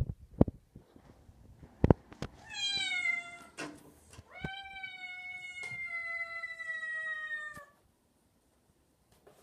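Bengal kitten meowing: two long meows sliding slightly down in pitch, the second lasting about three seconds. A few sharp taps come before them in the first two seconds.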